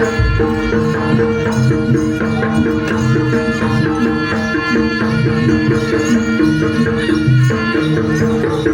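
Live jaranan ensemble music: hand drums under a fast, repeating melody of short pitched percussion notes, played continuously.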